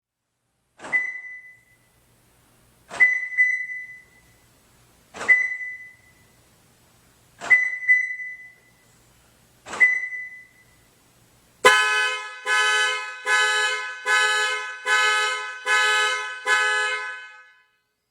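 Five sharp taps about two seconds apart, each with a brief ringing tone. Then a car alarm sets off the horn, which honks in eight regular blasts a little under a second apart before stopping.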